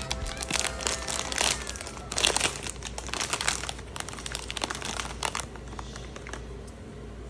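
Plastic packaging of a Pop Mart Labubu blind box crinkling and rustling in hands as it is unwrapped, in quick irregular crackles. The crinkling dies down about five and a half seconds in, leaving a quiet steady hiss.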